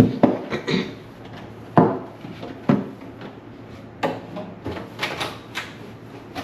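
A refrigerator drawer being handled and cleaned: sharp knocks and clatter about a second apart, with rubbing and scraping sounds in between.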